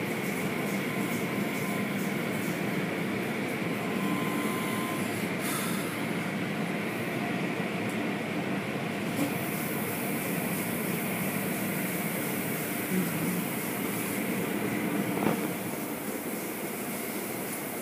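Automatic tunnel car wash heard from inside the car: water spray and spinning brushes scrubbing against the body make a steady rushing noise. After a short knock about 15 seconds in, it turns quieter.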